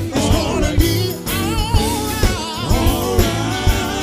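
Live gospel music: a lead singer sings wavering, drawn-out lines into a microphone over a full band keeping a steady beat.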